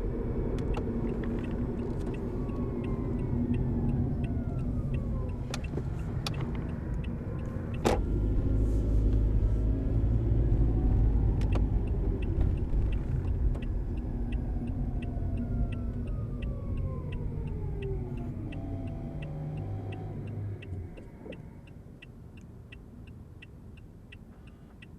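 Hybrid car driving: road and drive rumble, with a whine that glides up and down in pitch several times as the car speeds up and slows. A regular ticking of two to three a second runs through much of it. A sharp knock comes about 8 seconds in, the rumble grows louder after it, and the sound quietens near the end.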